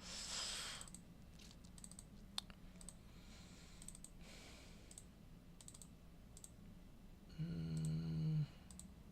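Sparse computer mouse clicks and keyboard keystrokes, soft and scattered. There is a breathy rush of noise in the first second and a short hummed voice near the end.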